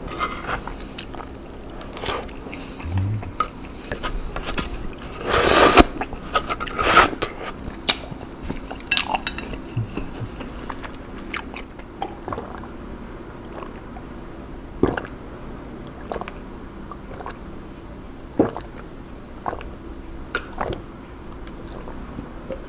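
Close-miked eating sounds: chopsticks clicking and scraping on a wooden board while spicy instant noodles are slurped and chewed, with a few louder bursts about five to seven seconds in. Later come sparse small clicks and gulps as he drinks from a plastic cup.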